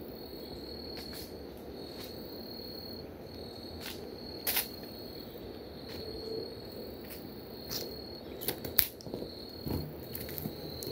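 Insects trilling in high, steady stretches of about a second each, broken by short gaps, with a few sharp clicks on top, the loudest near the end.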